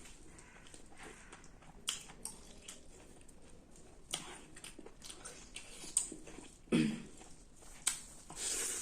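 A person eating close to the microphone: chewing and biting food, with a few sharp clicks or crunches scattered through, the loudest nearly seven seconds in, and a brief rustling swell near the end.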